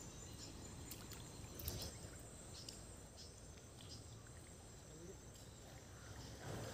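Faint outdoor ambience: a low, steady rumble with a few soft clicks and ticks scattered through the first half.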